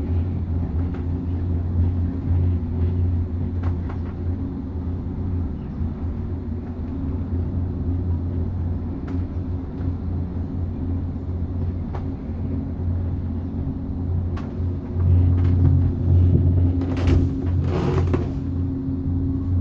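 Gondola cabin of a cableway running along its cable: a steady low rumble and hum with a few light clicks, and a louder noisy stretch near the end.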